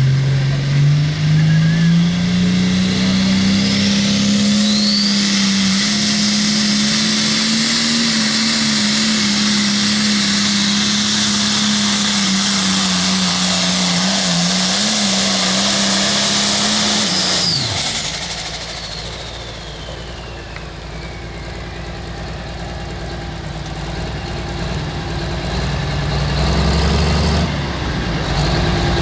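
Limited Pro Stock pulling tractor's turbocharged diesel engine revs up as it takes off with the sled, then runs flat out at steady high revs, with a high hiss over it, through the pull. About seventeen seconds in the engine drops off sharply as the pull ends. It runs lower and quieter after that, and revs up briefly once near the end.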